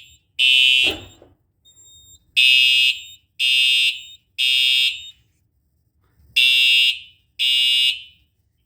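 Simplex TrueAlert horn/strobe horn blaring loud, high-pitched half-second blasts in the temporal-3 evacuation pattern: three blasts a second apart, then a pause. It ends one group, sounds a full group of three, then stops after two blasts of the next group.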